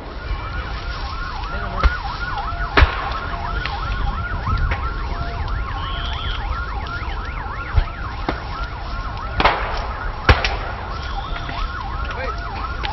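An emergency siren yelping in fast rising-and-falling cycles, about three a second. Several sharp pops and cracks, likely from the burning cars, cut through it.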